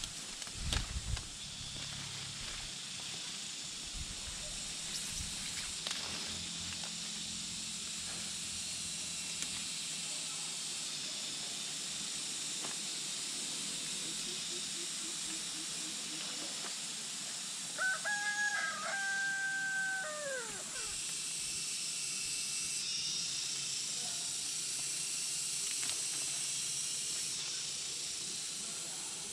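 A rooster crows once, about two-thirds of the way through, its last note falling away. There are a few dull thumps near the start, over a steady high hiss.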